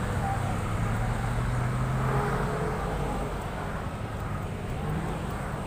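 Street traffic noise with a motor vehicle engine running, a steady low hum that is strongest in the first couple of seconds.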